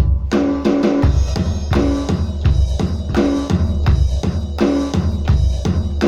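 Electronic drum kit playing a steady rock beat, with bass drum, snare and cymbal hits in a regular rhythm, over backing music with sustained pitched notes and a low bass line.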